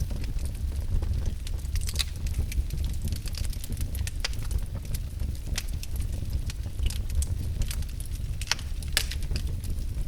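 Wood fire burning in a fireplace: a steady low rumble of the flames with irregular sharp crackles and pops.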